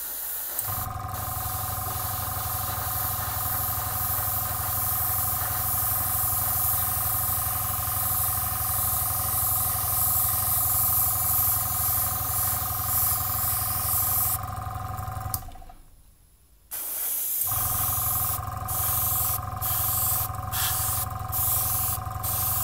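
Airbrush spraying clear varnish: a steady hiss with a low hum and a steady whistling tone under it. It stops for about two seconds near the middle, then starts again, and near the end the hiss is cut by short breaks, as the trigger is worked in short bursts.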